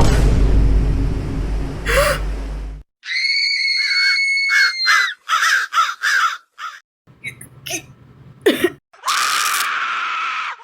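A loud rumbling noise cuts off suddenly, followed by a long, high scream. Then come a run of short cries and another drawn-out wail.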